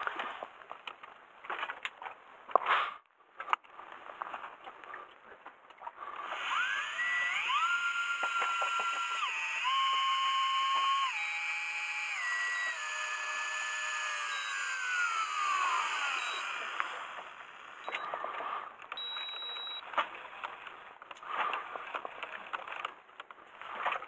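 A small electric motor's whine that spins up about six seconds in, holds at a few steady speeds that step up and down, then winds down to a stop about ten seconds later. Light knocks and rustling of gear being handled come before and after it.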